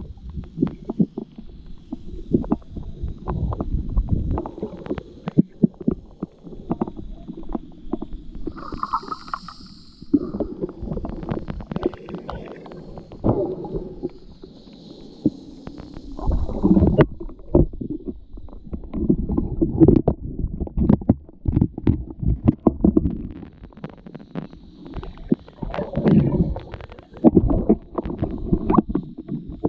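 Muffled underwater sound through a snorkeler's camera: low water rumble and gurgling that swells and fades, with frequent sharp clicks and crackles throughout.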